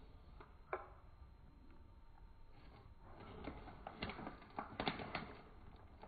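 Faint crinkling and clicking of a small plastic bag of Skittles being handled, with a sharper click shortly before the first second and a few more near the end.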